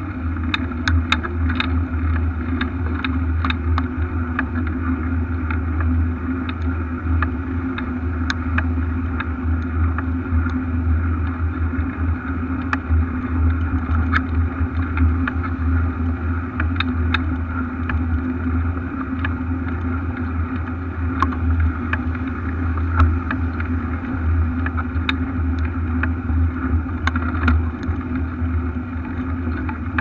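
Riding a bicycle along a brick-paved cycle path, heard from a camera on the bike: a steady low rumble with frequent light clicks and rattles as the bike jolts over the paving bricks.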